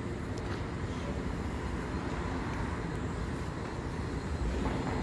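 Steady low rumble of outdoor city noise, with no single clear source and no distinct events.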